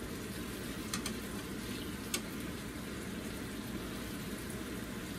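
Shrimp simmering in tamarind sauce in a frying pan: a steady bubbling sizzle. There are two light clicks of the utensils against the pan, about one and two seconds in.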